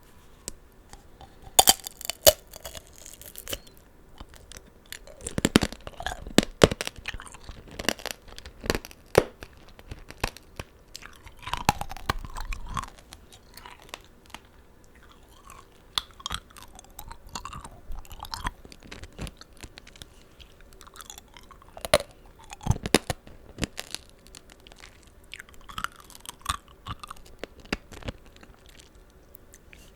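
Close-miked eating of tanghulu, fruit coated in hard sugar candy: sharp crunches as the glassy candy shell cracks under the teeth, repeated at intervals, between stretches of wet chewing of the juicy fruit.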